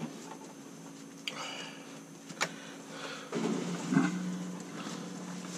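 Top-loading washing machine running with a steady low hum that shifts lower and a little louder about three seconds in. A few light clicks and a knock from metal wrenches and their plastic tray being handled.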